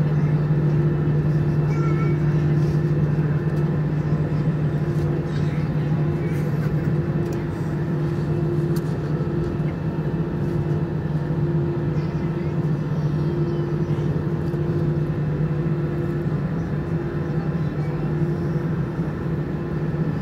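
Cabin noise inside an Airbus A320 taxiing, its jet engines at taxi power: a steady drone with a strong low hum and a fainter higher tone that comes and goes.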